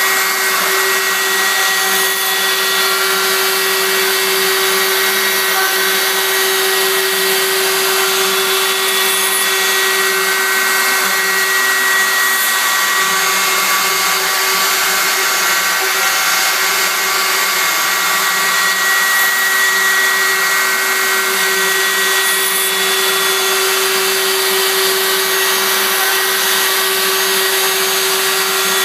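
CNC machine running steadily while cutting, a constant whine from its spindle over a steady rushing noise.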